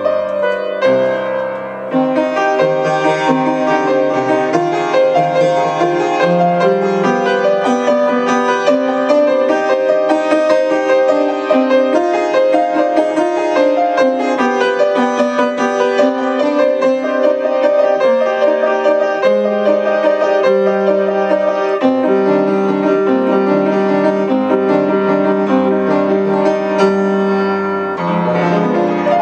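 Upright piano played solo: a steady stream of quick notes and chords over changing bass notes, with no break.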